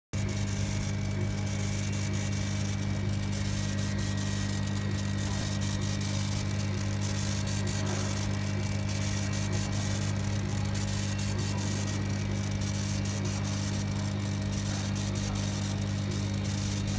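Laser engraving machine with a rotary attachment running while it engraves a cardboard tube: a steady low hum with a hiss over it.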